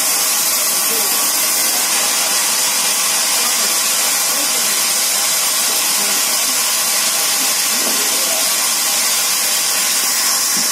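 Large vertical band saw running, its blade ripping lengthwise through a log as it is pushed through. The sound is a loud, constant hiss with a steady whine under it.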